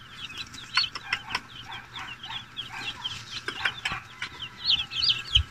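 A box of broiler chicks peeping constantly in many short, high chirps, louder near the end. Scattered clicks and rustles come as the chicks are scooped out of the cardboard chick box, and there is a dull thump near the end.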